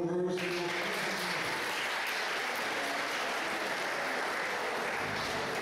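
Crowd applauding steadily from about half a second in, greeting the decision in an amateur boxing bout as the winner is declared.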